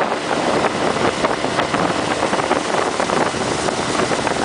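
Small motorboat underway, its outboard engine running steadily under a constant rush of water and wind.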